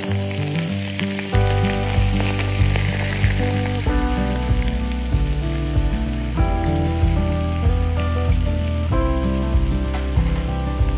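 Hot oil poured from a frying pan over sesame seeds, chili powder and sliced scallion in a bowl, sizzling hard. The sizzle is strongest in the first few seconds and then eases, under background music with a steady beat.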